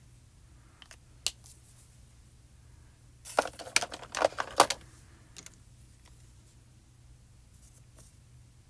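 A sharp click, then a burst of rapid clicks and light clatter lasting about a second and a half, from small craft tools and pieces being handled on a hard work surface.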